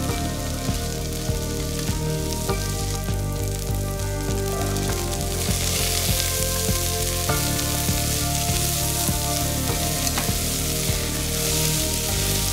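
Chopped shallots, garlic and celery sizzling in olive oil in a stainless steel saucepan, stirred with a spatula that scrapes and knocks against the pan now and then. The sizzle gets louder about five seconds in.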